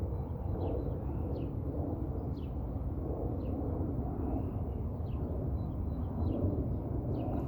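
A small bird chirping: short, high, downward-sliding chirps repeated every half second or so, over a steady low rumble.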